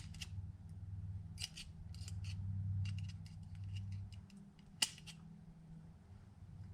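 Thin clear Lexan polycarbonate sheet being cut by hand in a scattered run of short, crisp snips, with one sharper click about five seconds in. A steady low hum runs underneath and drops away about four seconds in.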